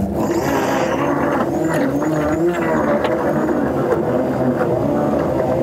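Countertop blender motor running steadily, a continuous hum, as it purées chunks of raw vegetables.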